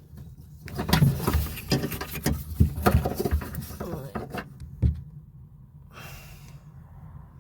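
Irregular clicks and knocks of hand work on plastic and metal parts inside a Land Rover Discovery 4's door, around the door lock actuator and its cables. They die away about five seconds in, and a brief rustle follows.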